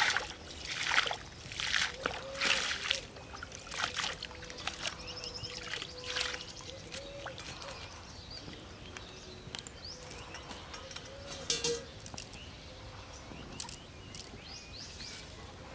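Pond water splashing as it is scooped up and flung with a metal pan, about one loud splash a second for the first few seconds, then fainter, sparser splashes.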